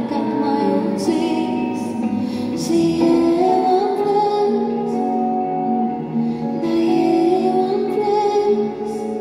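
A woman singing live into a microphone over backing music, heard through a concert PA system.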